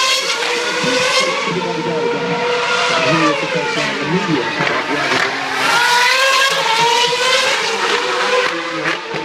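Formula One car engines running at high revs, their pitch climbing and dropping through gear changes as several cars pass at once.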